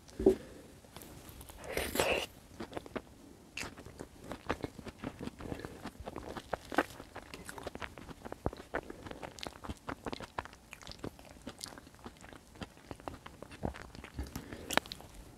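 Close-miked eating: chewing and wet mouth smacks as bread soaked in tomato sauce and soft white beans are eaten, with many small sticky clicks. Two louder mouth sounds come in the first two seconds.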